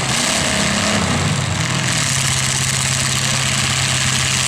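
Demolition derby car engines running. One revs up and down in the first two seconds, then the engines settle into a steady hum.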